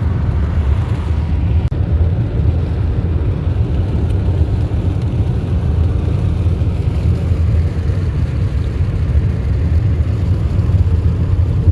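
Steady low rumble heard from inside a moving vehicle's cabin: engine and travel noise with no clear changes.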